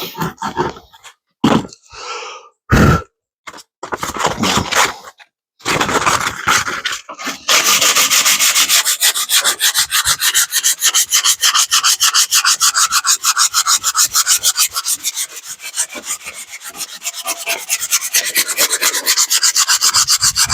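Sandpaper rubbed by hand back and forth on wood in quick, even strokes. The first seven seconds hold scattered short scrapes and knocks; the steady sanding starts about seven seconds in.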